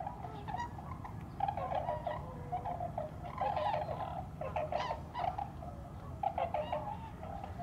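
A flock of tundra swans calling, many high hooting calls overlapping in a continuous chorus.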